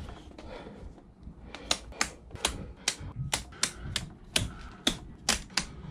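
Toggle switches on a Sea Ray boat's electrical switch panel being flipped one after another: about a dozen sharp clicks, roughly three a second, starting about a second and a half in.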